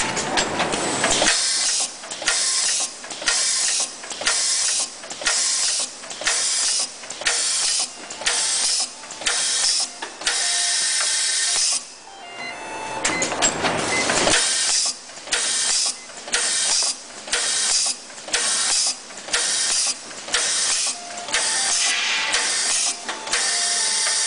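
Plastic diaper bag making machine running in its feed-and-seal cycle: a hissing mechanical noise broken by a short pause about once a second. The rhythm breaks for about two seconds about halfway through.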